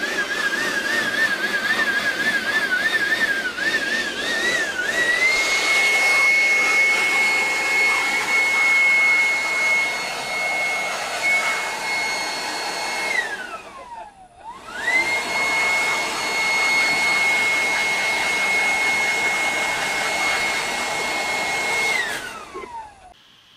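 Handheld leaf blower running: a rush of air under a high motor whine. The whine wavers in pitch for the first few seconds, then holds steady. About two-thirds through it winds down and spins straight back up, and it winds down again near the end.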